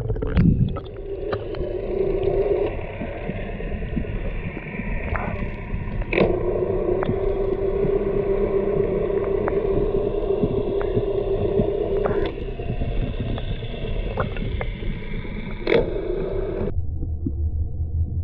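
Muffled underwater sound from a camera in a waterproof housing: a steady hum that drops out and comes back twice, with scattered clicks and knocks. Near the end the higher sounds cut off and only a dull low rumble remains.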